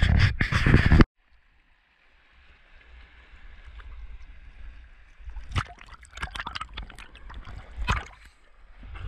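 Wind buffeting the microphone, cut off suddenly about a second in; then a faint hiss and muffled water sounds from a camera at and under the surface, with a run of short splashes and sloshes from about halfway as a spearfisher in fins swims off towing his float.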